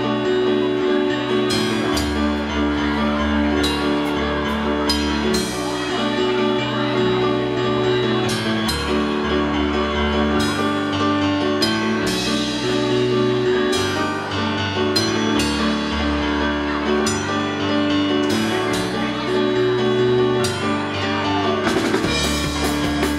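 Live rock music: a keyboard playing sustained chords over stepping bass notes, with the drum kit coming in hard with rapid hits and cymbals near the end.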